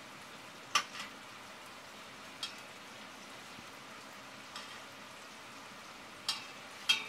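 A metal utensil clinking sharply against a stainless steel cooking pot about six times as meat pieces are put into a tomato masala, the loudest clinks about a second in and near the end. A faint steady sizzle of the masala cooking in the pot runs underneath.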